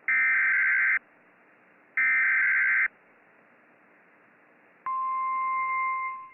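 Emergency Alert System SAME header from NOAA Weather Radio: two identical raspy digital data bursts, each about a second long and a second apart. They are followed near the end by the steady 1050 Hz weather radio alert tone, which marks the start of a new warning.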